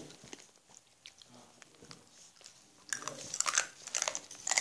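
Satin ribbon rustling and crinkling as it is folded and pressed by hand, faint at first, then a burst of crackly rustling in the last second and a half.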